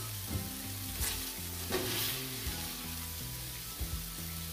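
Stir-fried beef sizzling in a hot cast-iron skillet while a spatula scoops it out, with a few brief scrapes and knocks of the spatula against the pan.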